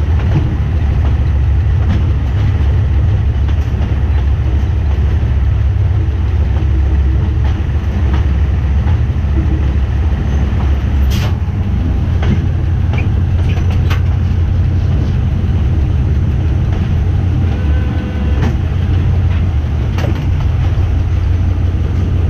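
GE diesel-electric shunting locomotive running with a steady deep rumble as it moves coaches, with a couple of sharp knocks about halfway through.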